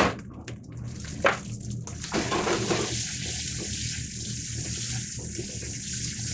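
Fried rice sizzling in a hot frying pan as a ladle stirs and scrapes it, with oyster-dashi soy sauce just added. A sharp knock of the ladle on the pan at the start and another about a second in, then the sizzle rises to a dense, even hiss about two seconds in, with light ladle clicks through it.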